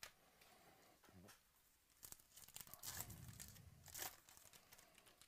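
Wrapper of a 2018 Topps Archives baseball card pack torn open by hand: faint rasps of tearing, strongest about three and four seconds in.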